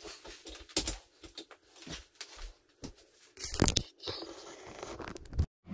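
Handling noise close to the microphone: irregular rustling, clicks and light knocks, with a louder scraping rustle about three and a half seconds in as the camera is taken in hand. The sound cuts off abruptly just before the end.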